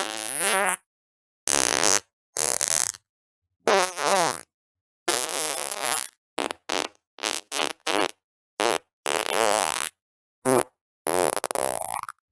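A string of about fifteen separate fart sounds, each cut off cleanly into silence: several longer ones with a wavering, buzzy pitch, a quick run of short pops in the middle, and a longer one near the end.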